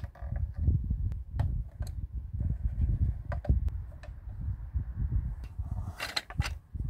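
Small hard-plastic pieces of a Hello Kitty toy kitchen set being handled and set in place: light clicks and taps, with two sharper clatters about six seconds in, over a low rumble.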